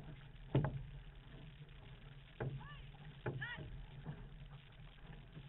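Outrigger racing canoe running under paddle: a steady low rush of water along the hull, broken by three sharp knocks of paddle strokes. Two short calls from a paddler come in the middle.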